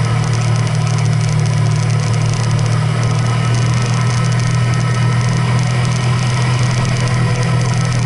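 Motor vehicle travelling at a steady pace: a constant low engine hum with road and wind noise, unchanging throughout.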